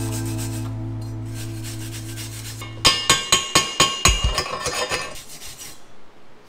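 Background music fading out, then a quick run of sharp metal clanks with a ringing tone, about five a second for over a second, followed by a few quieter knocks, as the steel parts of a compact metal bender are knocked and handled.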